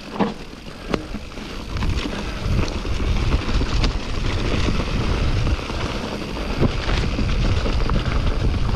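Wind buffeting the camera microphone and mountain-bike tyres rolling over a forest trail, building up from about two seconds in as the bike gathers speed. A few sharp clicks and knocks from the bike are scattered through it.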